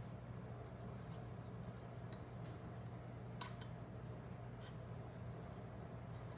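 Fingers pressing and pleating pie crust dough into a metal muffin tin: faint scattered clicks and soft rustles, the clearest a little past three seconds in, over a steady low hum.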